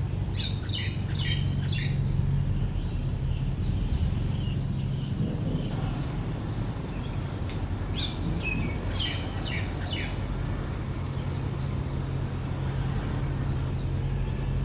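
Birds chirping in two short spells, one near the start and one about two thirds of the way through, over a steady low rumble.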